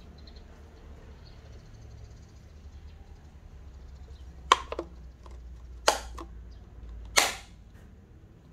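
Clear plastic paint cup knocking and sliding as it is handled and lifted off a canvas: three sharp clacks about a second and a half apart, the last one a little longer, over a low steady hum.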